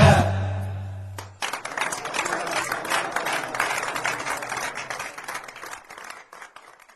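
The song's last low note dies away over about a second. Then an audience breaks into applause, which fades out over several seconds.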